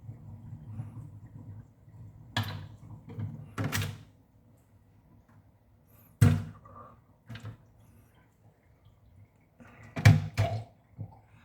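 A handful of separate knocks and thuds in a kitchen, about five in all, the loudest about six seconds in and again about ten seconds in. A low hum is heard in the first second or two.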